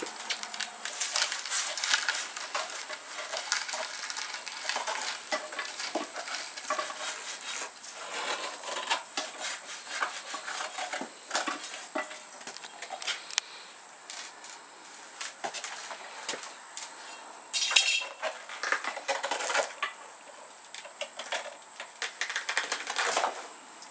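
Cabbage palm being stripped by hand to reach the heart: the fibrous outer layers crack, snap and tear in an irregular run of crisp cracks and crackles. A louder flurry of snaps comes about three-quarters of the way through.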